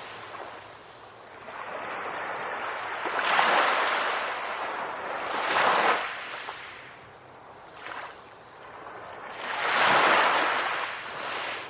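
Ocean waves breaking and washing up a beach, a hissing surf that swells and ebbs three times, the last surge the loudest.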